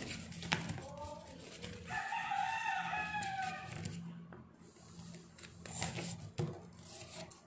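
A rooster crowing once, about two seconds in, a single drawn-out call lasting about a second, with a few light crinkles and clicks of paper being folded and pressed on a tabletop.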